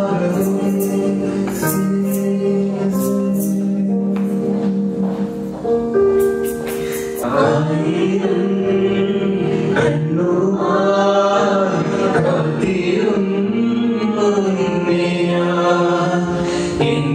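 A small group of male and female voices singing live with acoustic accompaniment. For about the first seven seconds they hold long notes over sharp rhythmic taps, then the voices move into a wavering, sliding melody.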